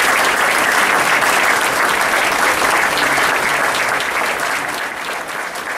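Audience applauding steadily, the clapping tapering off near the end.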